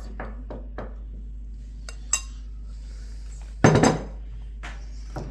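Cutlery and serving utensils clinking against china plates and a metal serving platter while food is dished out. There are a few light taps at first, a sharp ringing clink about two seconds in, and the loudest clatter just before four seconds, with a steady low hum underneath.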